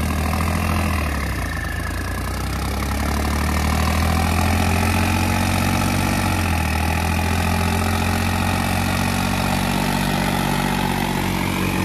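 Diesel tractor engines running hard and steady under heavy pulling load in a tractor tug-of-war, their pitch dipping slightly about two seconds in and then holding.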